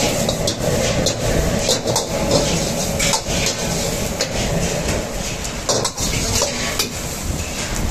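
Steel ladle scraping and clanking against a steel wok as onions, capsicum and dried red chillies are stir-fried, with irregular metal knocks over a steady sizzle of frying.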